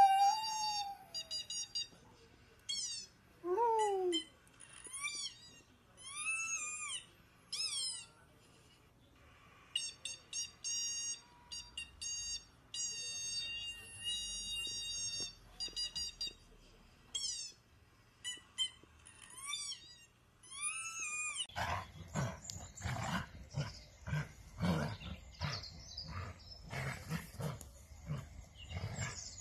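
A long-haired dachshund howls: a loud falling howl at the start and another about four seconds in, among a string of shrill, high tones that beep and warble on and off for about twenty seconds. After that the sound changes to a rough, noisy stretch of dogs playing, with growl-like rumbles.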